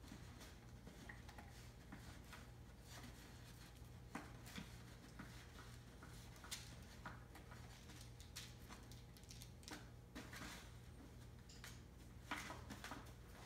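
Near silence: faint, scattered scuffles and clicks of five-week-old Entlebucher puppies moving about, over a steady low hum, with one slightly louder knock near the end.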